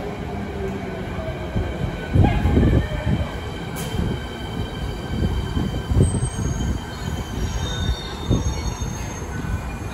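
Beijing Subway Line 5 train rumbling into the station behind the platform screen doors, with high wheel squeal in the second half. The rumble swells louder about two and six seconds in.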